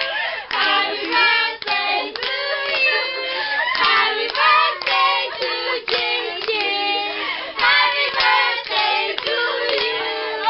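Voices, children's among them, singing a birthday song together, with hands clapping along.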